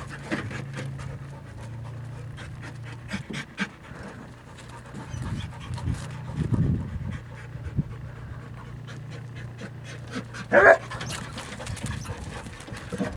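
Dog panting rapidly and heavily, with a steady low hum underneath. About ten and a half seconds in, a short, louder vocal sound.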